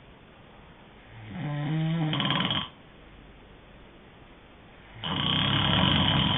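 A person snoring in their sleep: two snores a few seconds apart. The first, about a second in, has a clear pitched tone; the second, about five seconds in, is louder and rougher.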